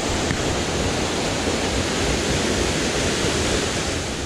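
A waterfall's falling water making a loud, steady, even rush.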